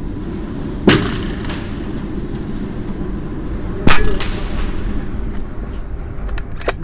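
Two shots from a regulated Jaeger PCP air rifle, about three seconds apart, each a sharp crack with a short echo in an indoor range. Near the end come a few quick clicks as the action is cycled for the next shot, over a steady low hum.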